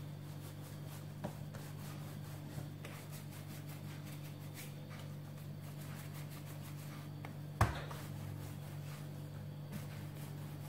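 Hands rolling a strand of yeast dough on a floured countertop: faint rubbing over a steady low hum, and one sharp knock about seven and a half seconds in.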